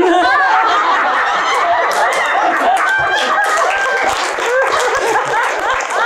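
Audience laughing and cheering, with scattered clapping.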